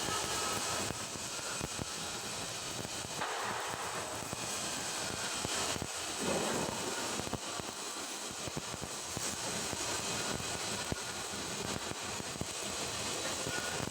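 Stick (SMAW) welding arc on carbon-steel pipe, a steady crackling, frying hiss.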